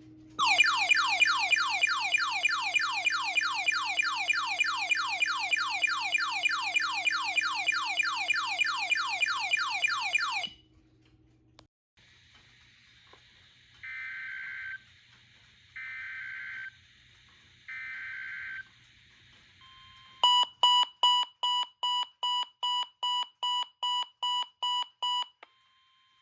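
Weather radio receiver alert alarms. First comes a loud falling siren-like chirp repeating about four times a second for ten seconds. After a pause come three long electronic beeps about two seconds apart. Near the end is a run of about fourteen quick, sharp beeps that each fade.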